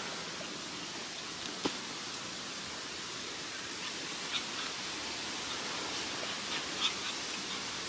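Steady outdoor background hiss, with a few faint short scuffs or taps on gravelly ground.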